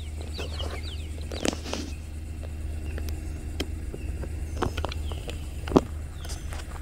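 Steady low rumble with a few sharp knocks from a handheld phone being moved, the loudest a little before the end.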